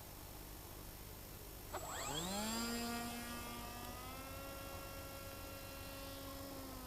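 Faint electric motor of a HobbyKing Phantom FPV model plane spinning up about two seconds in, with a quickly rising whine that then settles into a steady hum.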